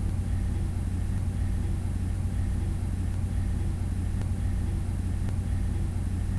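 Steady low hum with a faint hiss: background noise of the recording, with no other sound.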